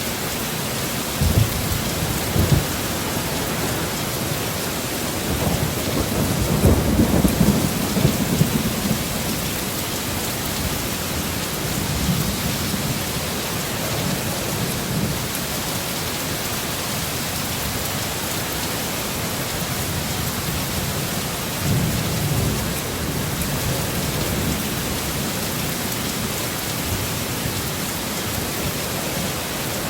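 Heavy rain falling steadily, with low rolls of thunder swelling up several times; the longest and loudest rumble comes about six to nine seconds in.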